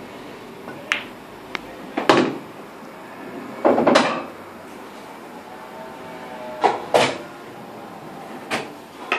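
Pool balls clacking on a pub pool table: the cue tip striking the cue ball, then balls knocking into each other and off the cushions. About eight sharp knocks come in loose clusters, the loudest about two and four seconds in.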